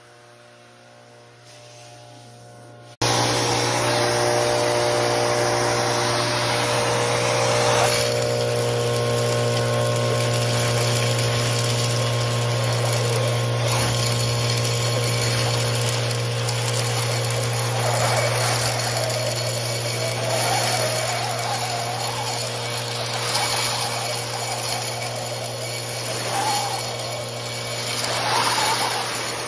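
A 25 hp industrial central vacuum runs with a steady low hum while its 3-inch hose and metal wand suck up blast shot. It is faint for the first three seconds, then suddenly loud with the rush of air and shot through the wand, swelling and easing as the wand moves over the pile.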